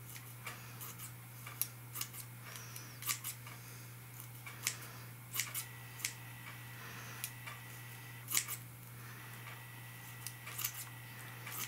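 Scissors snipping through black mesh netting: a string of sharp, irregularly spaced clicks and cuts, with a steady low hum underneath.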